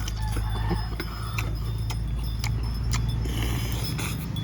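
Steady low hum of a vehicle engine running nearby, with scattered short sharp clicks and clinks over it.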